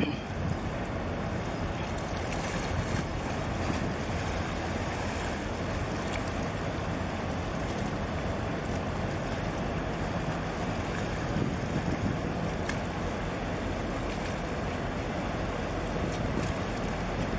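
Steady wind buffeting the microphone over the wash of harbour water, with a low steady hum underneath.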